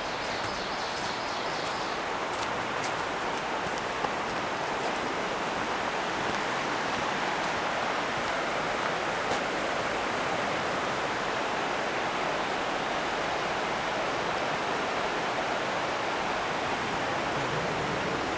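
Steady rushing of a river's flowing water, an even noise with no rhythm.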